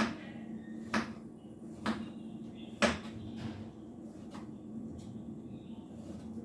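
Knife slicing a cucumber into thin slices, the blade knocking sharply on the cutting board about once a second, four times, then two fainter ticks.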